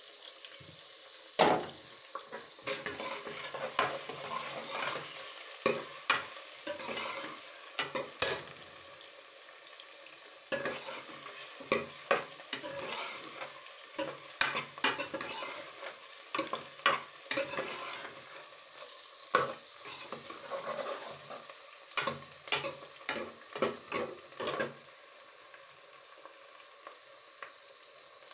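Onion, garlic and tomato sizzling in hot oil in a metal pot, with a steel ladle scraping and knocking against the pot again and again as they are stirred. The stirring stops a few seconds before the end, leaving the steady sizzle.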